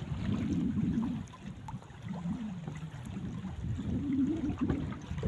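Wind buffeting the microphone and water sloshing against the hull of a small wooden boat at sea, coming in uneven low gusts.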